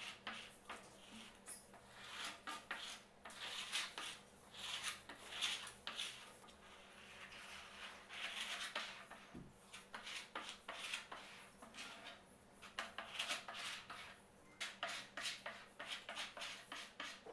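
A hand spreader scraping white wood glue across a plywood panel in short, irregular repeated strokes, with one soft thump about nine seconds in.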